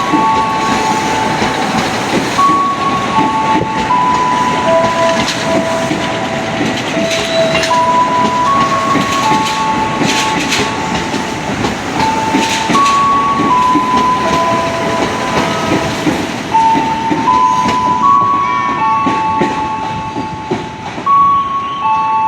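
Electric commuter train running slowly past the platform, its wheels clattering and clicking over the rails. Over it, a simple tune plays in steady single notes, like a station melody.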